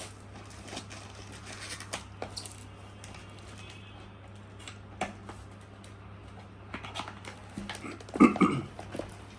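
Tripod packaging being opened and handled: scattered rustles and clicks over a steady low hum, with one short, loud burst about eight seconds in.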